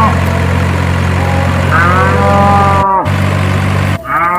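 Cow mooing twice, each a long moo, over a steady low engine hum; the hum drops out abruptly for a moment just before the second moo.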